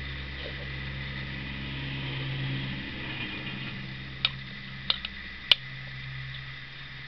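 A spoon clinking three times against a dish while stew is eaten, sharp and brief, the last clink the loudest, about four to five and a half seconds in. Under it a steady low hum, like a fan or appliance, runs throughout.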